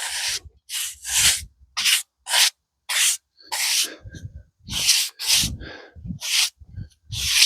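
Brush strokes scrubbing loose dirt off the surface of a pitch pine log, about two quick, rasping strokes a second.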